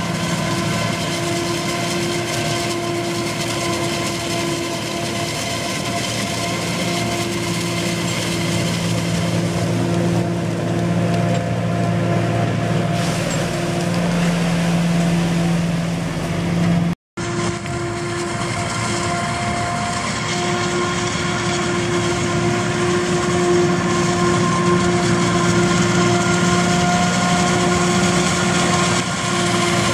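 New Holland FR forage harvester running steadily under load as it chops maize and blows it into a truck driving alongside, a steady machine drone with a hum of several held tones. The sound cuts out for a moment just over halfway through, then carries on unchanged.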